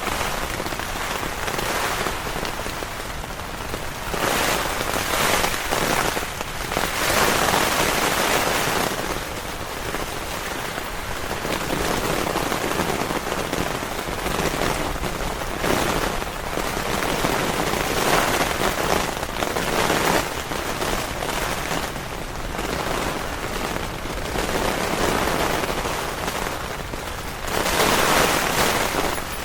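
Heavy rain pouring onto a tent, a dense steady hiss that swells louder and softer in waves every few seconds.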